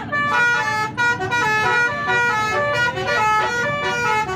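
Bus 'telolet' horn, a set of musical horns, playing a quick tune of short notes that step up and down in pitch.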